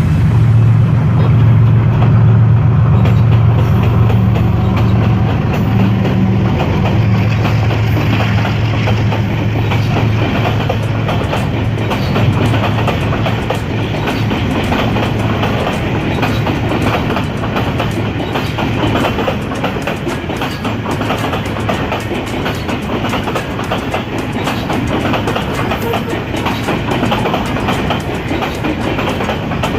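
A freight train passing: the diesel locomotive's engine drones for about the first ten seconds, then a long rake of wagons clatters past with a steady clickety-clack over the rail joints.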